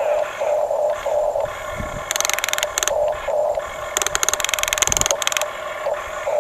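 Small electric motors and gearboxes of a radio-controlled toy construction model whining in short start-stop pulses, with two longer, harsher buzzing runs, one about two seconds in and one about four seconds in.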